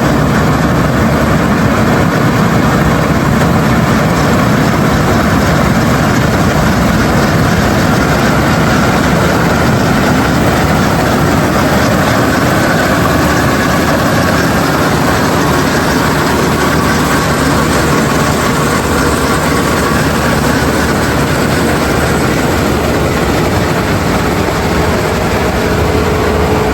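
Claas Avero 240 combine harvester running steadily while cutting winter wheat: engine and threshing machinery as one loud, even mechanical noise, with a faint held whine.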